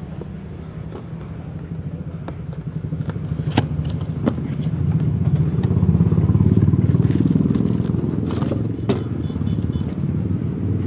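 An engine running with a low, evenly pulsing rumble. It grows louder to a peak about six seconds in, then eases off a little, with a few sharp clicks on top.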